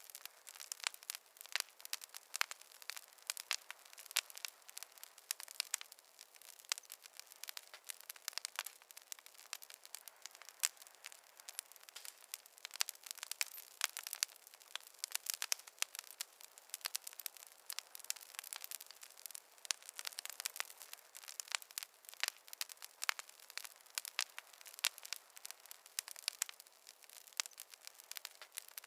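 Wood fire crackling: a dense, irregular run of sharp pops and snaps of varying loudness over a faint hiss, with no low rumble.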